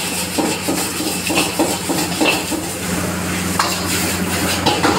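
Metal ladle clanking and scraping against a wok as stir-fried noodles are tossed, in quick knocks several a second, with a sizzle of frying and a steady low hum underneath.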